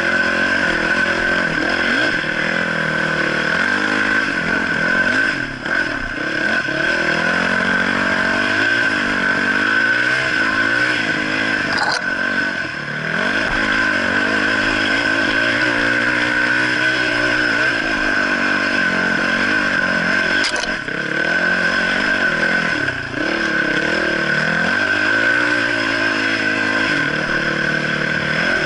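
Dirt bike engine running under load, its revs rising and falling over and over as the throttle is opened and closed. The engine briefly backs off three times, about six, twelve and twenty-three seconds in.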